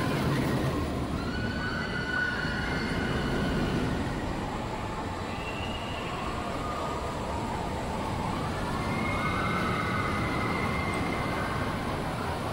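Busy amusement-area din: steady crowd and ride noise, with several high, held tones of a second or two each rising out of it.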